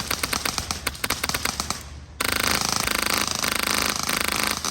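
HPA airsoft rifle with a PolarStar Jack engine firing. First comes a string of sharp shots at about ten a second. About two seconds in, a louder, much faster continuous burst follows, with a brief break near the end.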